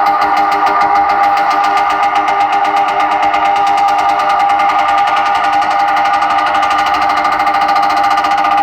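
Steady, loud buzzing drone at a fixed pitch with a rapid even pulse, played over a large DJ speaker system.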